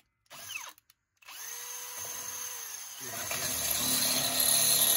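Cordless drill with an 11/32 bit drilling out a pilot hole in the metal rear frame plate of a John Deere D140 garden tractor. The drill starts about a second in, runs steadily, then gets louder from about three seconds in as the bit cuts into the metal.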